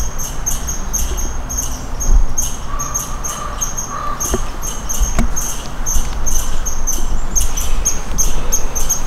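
Rapid high-pitched chirping from a small animal, repeated evenly several times a second throughout. A low rumble sits underneath, and a couple of sharp knocks come about halfway through.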